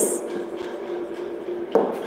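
Whiteboard marker scratching across a whiteboard as a word is written, then a single sharp tap about three quarters of the way through, as the marker dots a full stop. A faint steady hum lies underneath.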